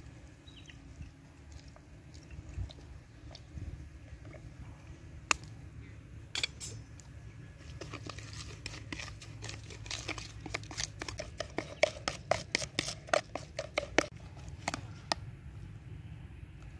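Metal spoon tapping and scraping against a plastic bowl while stirring chili flakes and sauce into a paste. A few scattered clicks at first, then a quick run of sharp taps, about three or four a second, through the second half.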